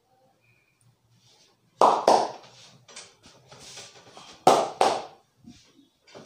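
A barber's hands slapping a customer's back during a massage: two sharp slaps in quick succession about two seconds in, a pair again about four and a half seconds in, with softer pats between them.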